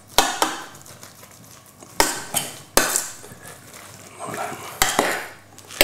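A utensil stirring butter into chunks of boiled potato and celeriac in a stainless steel pot, scraping through the mash with several sharp knocks against the pot.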